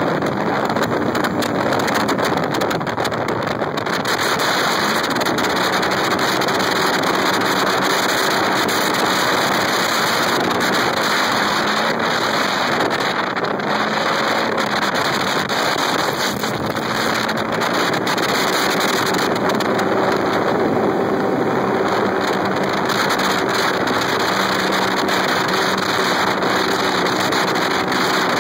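Polaris RZR XP 900 side-by-side's parallel-twin engine running under load, its pitch rising and falling with the throttle. Heavy wind noise on the microphone covers much of it.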